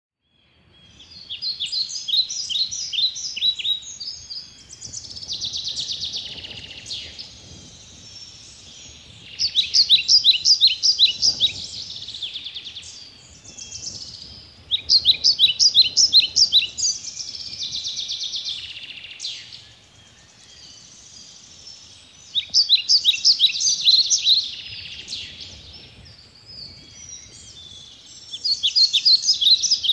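Songbirds singing: loud bursts of quick repeated high notes about every six seconds, with softer hazy song between them, over a faint low background rumble.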